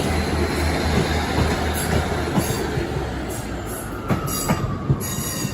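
Class 150 Sprinter diesel multiple unit moving through the station: a steady low engine throb that fades after the first couple of seconds, then wheel squeal gliding down in pitch and a few clicks of wheels over rail joints in the last second or so.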